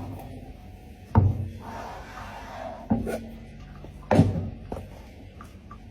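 Three sharp knocks, the first about a second in, over a low steady hum.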